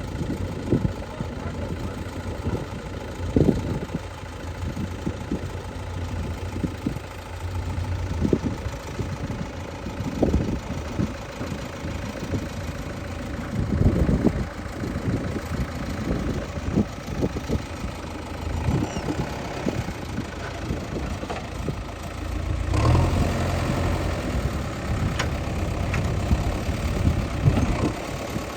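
Heavy diesel machinery engine running steadily at low speed, with irregular knocks and thumps over it. It grows louder and busier from about three-quarters of the way in.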